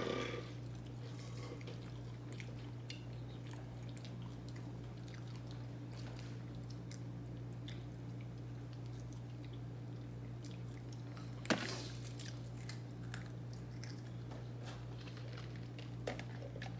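Close-miked chewing and mouth sounds of a person eating chicken wings, with scattered small clicks and one sharper click about eleven and a half seconds in, over a steady low hum.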